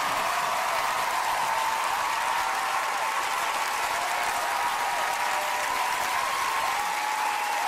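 Large studio audience applauding and cheering, the last piano notes dying away at the very start.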